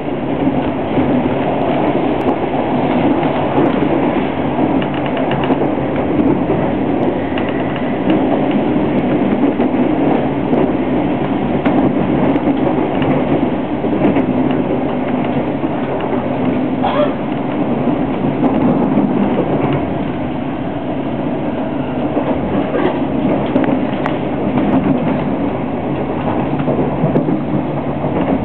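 Intercity train running, heard from inside the carriage: a steady rumble of wheels on the rails with a few faint clicks.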